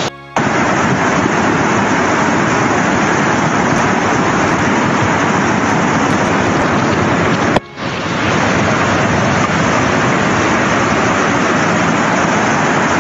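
Loud, steady rush of a muddy flash-flood torrent in spate. The sound breaks off for a moment twice, once just after it begins and once about two-thirds of the way through.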